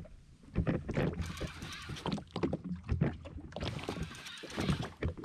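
Water slapping against a jet ski's hull, with irregular knocks and rattles from the craft and fishing gear.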